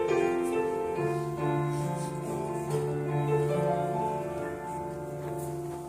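Electric keyboard playing slow, held chords that change about once a second, the accompaniment of a church choir piece.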